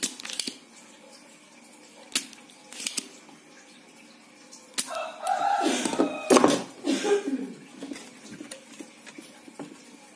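Scattered sharp clicks and handling knocks from desoldering work on the underside of a CRT TV's main circuit board, as the leaking, overheating vertical output electrolytic capacitor is removed. A louder, rough, irregular stretch of sound comes from about five to seven and a half seconds in.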